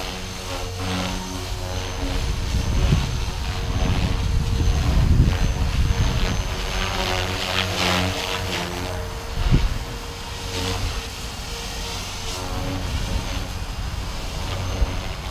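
Blade 330S electric radio-controlled helicopter flying overhead, its main rotor and brushless motor whirring steadily, getting louder in the middle of the flight pass.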